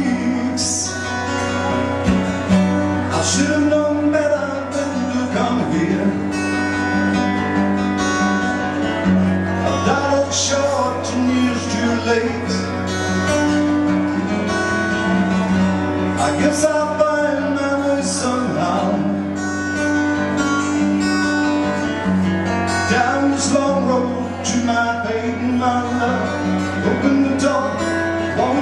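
Live solo acoustic guitar, strummed and picked steadily through a song, with a male voice singing in places.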